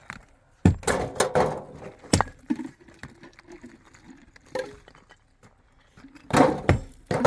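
Irregular sharp knocks and clinks of hard objects striking, a few at a time, with the loudest cluster near the end.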